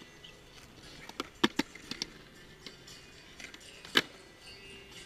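Skateboard rolling on concrete with a few sharp clacks from the board and wheels. Two come close together about a second and a half in, and the loudest comes about four seconds in, over a low, even rolling noise.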